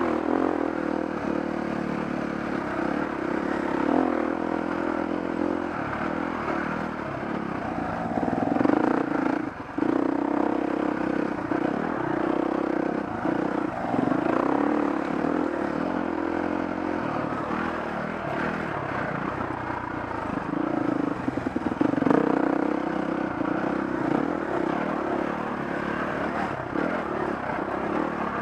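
Dirt bike engine running under load on a rough trail, revs rising and falling with the throttle and easing off briefly about ten seconds in, with clatter and knocks from the bumpy ride.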